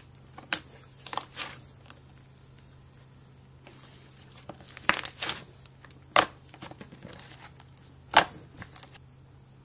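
Hands squishing, stretching and tearing thick pink slime, giving sticky crackles and sharp pops. The pops come in clusters, the loudest about five seconds in and about eight seconds in.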